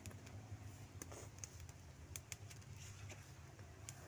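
Faint, irregular crackling and snapping of a small fire of dry leaves and twigs singeing a plucked duck to loosen its pin feathers, over a low steady rumble.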